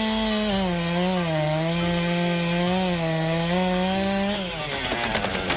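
Two-stroke chainsaw running at high revs, its pitch dipping and wavering as it is loaded in the cut. It cuts off suddenly near the end, followed by a brief crackling.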